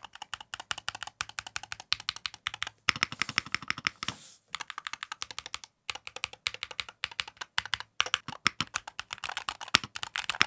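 Typing on an Akko MOD68 HE aluminium gasket-mount keyboard with magnetic Hall effect switches and PC/ABS double-shot keycaps: a rapid, continuous stream of keystroke clicks, with short breaks about four and six seconds in.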